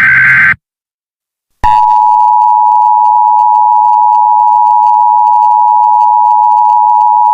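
Emergency Alert System signal: the last short burst of the screeching SAME data header cuts off about half a second in. After about a second of silence, the steady two-tone attention signal starts and holds, the alarm that announces an emergency alert.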